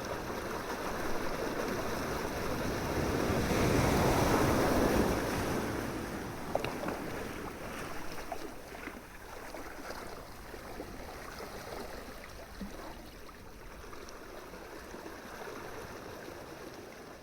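Ocean surf: a wave breaks and swells to its loudest about four seconds in, then washes back and slowly fades, with faint crackles of water and foam through the ebb.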